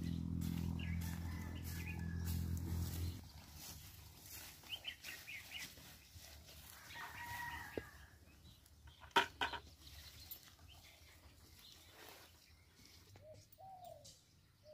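Rural outdoor ambience: a low steady drone that cuts off about three seconds in, then a rooster crowing about seven seconds in, two sharp knocks near nine seconds, and a dove cooing near the end.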